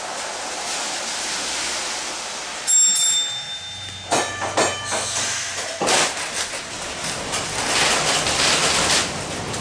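A 1906 wooden streetcar rolling on its rails: steady wheel and rail noise with rattles, a short high ring about three seconds in, and a run of sharp knocks a second later.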